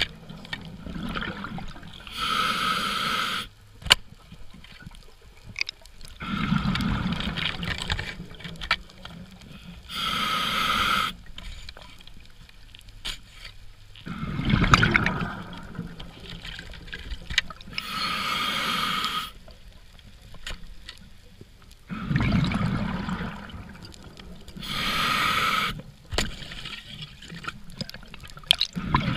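Scuba diver breathing through a regulator underwater: a hissing inhale about every eight seconds, alternating with the bubbling rush of each exhale. A single sharp click about four seconds in.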